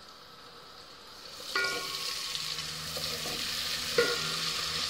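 Butter and oil sizzling in the hot nonstick inner pot of an electric rice cooker, starting suddenly about a second and a half in and then going on as a steady hiss. A couple of light knocks come near the middle and end.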